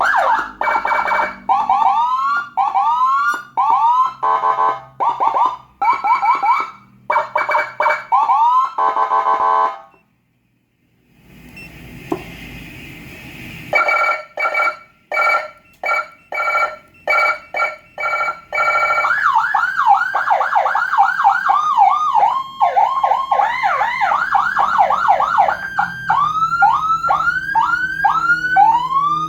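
Whelen HHS handheld dual-tone electronic siren cycling through its tones. First come short rising chirps, then after a brief break, bursts of a steady tone. After that comes a fast yelp with two sweeping tones overlapping, and near the end slower rising whoops.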